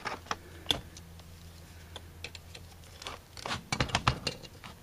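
Light metallic clicks and taps of a hand tool and fingers working on the throttle plates and screws of an Autolite 4100 four-barrel carburetor's throttle body: a few scattered clicks, then a quick run of them about three seconds in.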